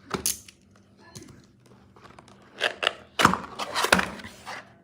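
Handling sounds during an unboxing: a few sharp knocks and clicks with some scraping, the loudest cluster a little past halfway.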